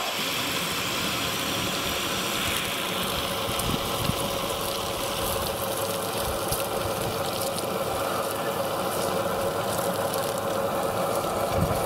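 Small electric water pump of a remote-control model fire truck running steadily while water jets from its monitor nozzle: an even whirring hiss with a faint hum and scattered light ticks.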